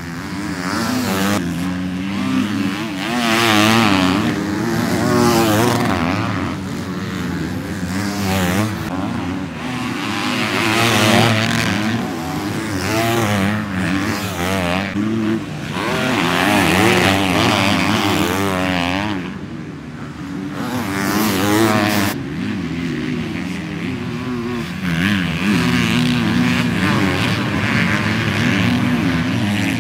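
250cc motocross bikes revving hard as they ride past one after another, engine pitch rising and falling quickly as the riders work the throttle and shift.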